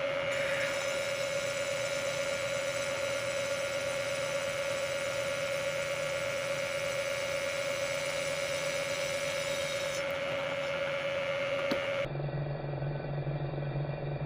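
Bridgeport milling machine running with a steady whine and hum. About twelve seconds in the sound cuts to a lower steady hum.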